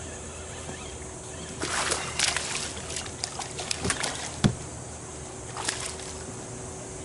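A hooked fish thrashing and splashing at the water's surface beside the boat, in a run of irregular splashes from about a second and a half in, then one more short splash a little later.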